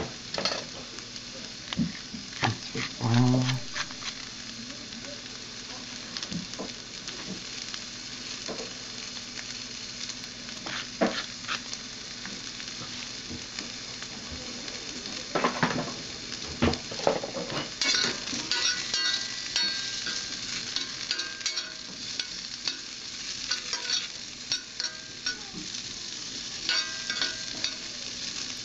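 Crosnes sizzling and spitting in hot coconut oil in a stainless steel frying pan, with scattered pops. In the second half a metal spoon stirs them, scraping and clinking against the pan.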